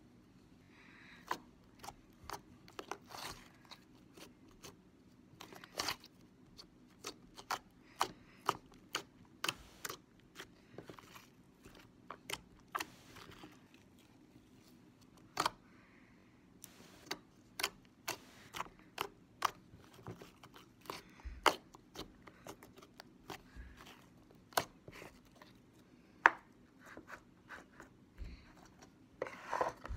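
Glossy blue slime being squeezed and poked by hand, making irregular sharp clicks and pops, often several a second, as trapped air pockets burst.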